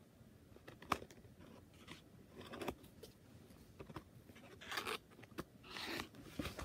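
Plastic packaging of a diamond painting kit being handled and opened: a sharp click about a second in, then short bursts of crinkling and rustling.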